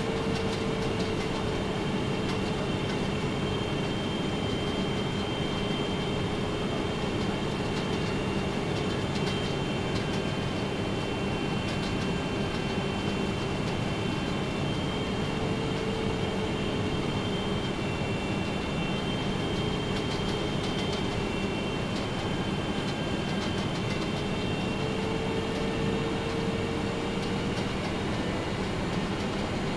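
Steady cabin noise inside an airliner on final approach for landing: engine drone and rushing airflow, with a faint steady hum running through it.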